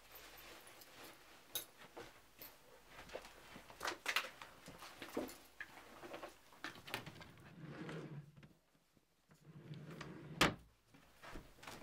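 A fabric handbag being handled and rummaged through: irregular rustling with small clicks and knocks of its contents and fittings, and one sharp click near the end.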